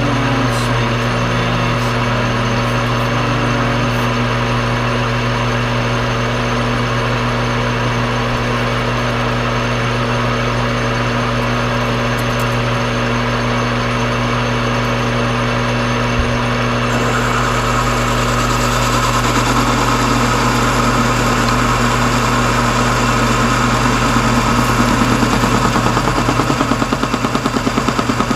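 Metal lathe running with a carbide boring tool cutting the inner bore of a steel part: a steady machine hum under the cutting noise. A little past halfway the cutting noise grows louder and harsher, and near the end it takes on a fast, regular pulsing.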